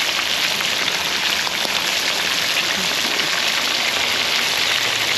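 Fish frying in a hot pan, a steady dense sizzle and crackle.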